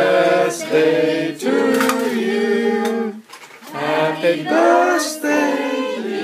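A group of voices singing a birthday song together, unaccompanied, in held notes, with a short break for breath about three seconds in.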